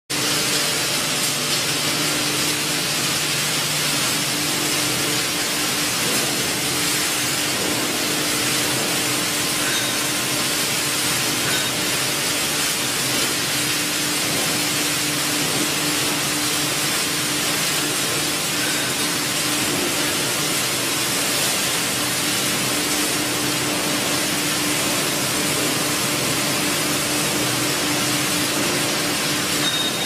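Plastic washing line machinery running steadily in a factory hall: a constant, even hiss with a steady hum under it and no let-up.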